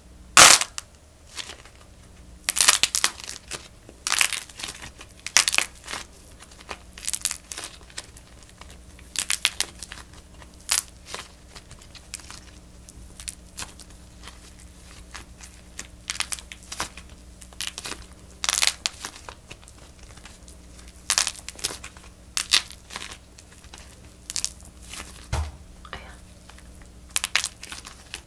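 Hands cracking the glossy coated shell of a soft clay macaron and peeling it off: a loud crack right at the start, then crinkly crackling and tearing in irregular bursts as the shell pieces break away from the squashed clay.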